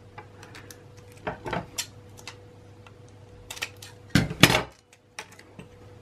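Small 3D-printed PLA clips and a strip of double-sided tape being handled: a few light clicks and rustles, loudest in a short cluster about four seconds in.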